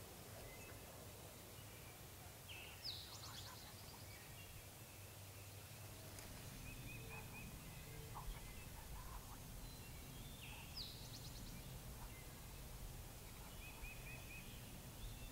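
Faint songbird song in quiet woodland: a short high song phrase about three seconds in and again near eleven seconds, with brief quick trills between, over a low steady background hiss.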